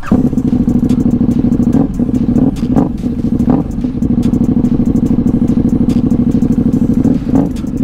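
KTM motorcycle engine running at idle, loud, with a few quick throttle blips in the first few seconds and one more near the end.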